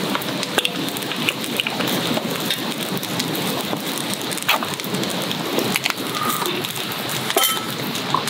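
Wood fire crackling steadily in a fire stand, a dense patter of small crackles with a few sharper pops.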